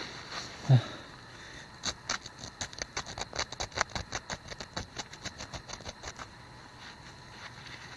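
Fingers scratching and scraping crust and dirt off a freshly dug metal button: a quick, uneven run of small scratchy clicks, about five or six a second, for a few seconds in the middle. A brief low voice sound, like a grunt, comes under a second in.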